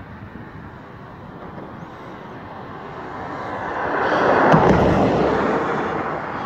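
A passing vehicle: its rushing noise swells to its loudest about four and a half seconds in, then fades.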